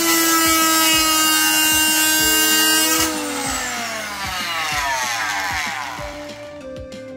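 Silverline 300 W corded oscillating multi-tool running at a steady pitch, then switched off about three seconds in, its motor winding down with a falling whine over the next few seconds.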